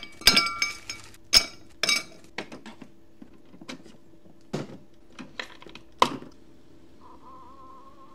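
Ice cubes clinking into a tall drinking glass, four or five sharp clinks with the glass ringing in the first two seconds. Then lighter clicks as a coffee pod is fitted into a single-serve pod coffee maker, a louder click of the brewer's lid closing about six seconds in, and a steady wavering hum of the machine starting to brew near the end.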